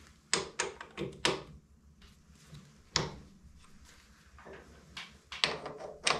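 Sharp metallic clicks and knocks from a four-jaw lathe chuck being turned by hand and its jaws adjusted with a T-handle chuck key, as the work is centered to a dial indicator. Several quick clicks in the first second and a half, a single knock about three seconds in, and another cluster near the end.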